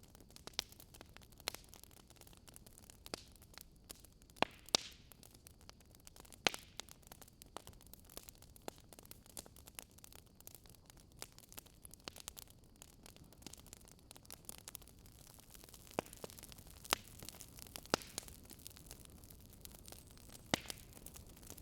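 Fire crackling: a soft steady hiss with irregular sharp pops and snaps, about one every second or two.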